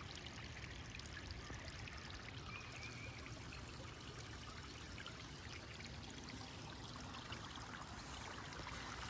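Steady, faint trickle and splash of water overflowing from a small garden pond and running over rocks, the pond swollen by heavy rain.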